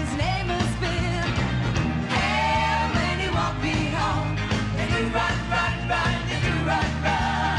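A live band playing an upbeat pop song, with several women singing lead into microphones over a steady beat.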